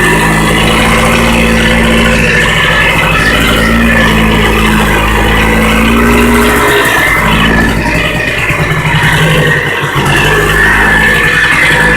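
Polaris two-stroke engine running loud and steady, with two brief dips, about seven and ten seconds in.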